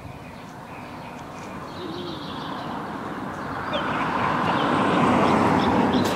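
A car driving past on the street, its tyre and engine noise swelling over the last few seconds to its loudest about five seconds in.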